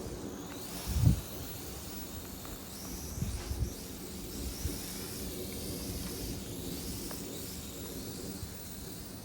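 Gusty wind buffeting the microphone in low rumbles, with a loud gust about a second in. Under it a faint, high, wavering whine comes from the small quadcopter's motors as the Sky Viper S1750 flies in the wind.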